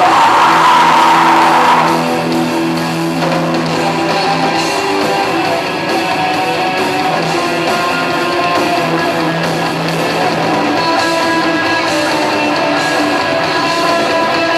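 Live rock band playing, with electric guitar to the fore; a little louder for the first two seconds, then steady.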